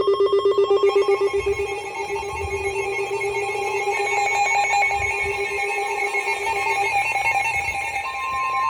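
Emergency alert tones sounded before a broadcast severe thunderstorm warning: a rapidly pulsing, trilling electronic tone at several pitches at once. A steady single tone joins about eight seconds in.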